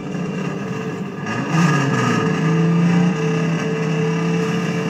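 Hudson Hornet race car's engine revving up about a second and a half in, then held at a steady, high rev.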